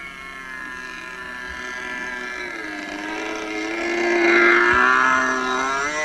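Radio-control model jet's glow engine, a YS .45 driving a pusher propeller, buzzing steadily as the plane makes a low pass along the runway. It grows louder to a peak about four and a half seconds in and then eases off a little, its pitch dropping slightly around the middle.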